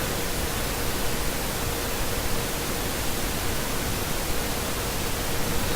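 Steady background hiss with a faint, even tone underneath; no other event.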